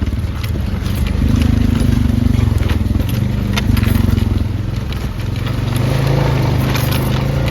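A vehicle engine running steadily at low speed, its drone shifting slightly in pitch, with scattered sharp clicks and cracks over it.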